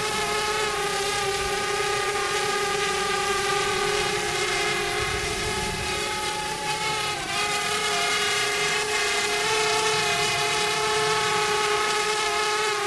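Parrot Bebop quadcopter drone flying, its propellers giving a steady high-pitched whine with a brief dip in pitch about seven seconds in.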